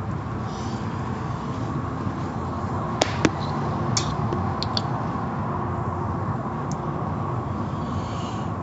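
Automatic car wash tunnel heard from inside the car: a steady rush of water spray and machinery, with two sharp clicks about three seconds in and a few lighter ticks soon after.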